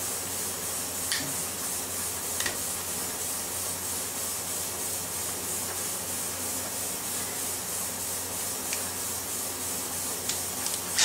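Handling noise of an AR-15 lower receiver as its stock is refitted: light rubbing and a few scattered faint clicks over a steady hiss, with a sharper click near the end.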